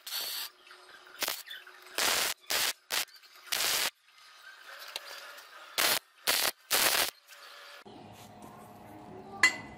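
Electric arc welder laying short tack welds: about nine crackling bursts, each under half a second, stopping about seven seconds in. After that a low steady hum and one sharp metallic clink near the end.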